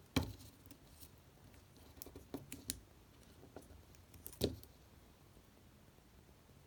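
Phone box packaging and accessories being handled: a few faint clicks and light knocks, the loudest shortly after the start and about four and a half seconds in, with a small cluster of taps in between.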